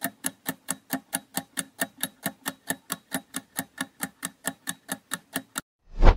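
Quiz countdown-timer sound effect: a fast, even, clock-like ticking, about four to five ticks a second, that stops about five and a half seconds in. A short, loud swelling rush follows, marking the answer reveal.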